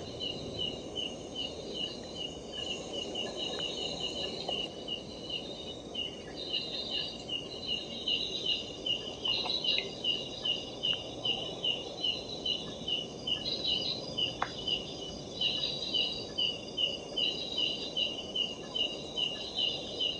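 Night insects chirping steadily, one in an even rhythm of about three chirps a second and another pulsing higher and less regularly, over a low hiss.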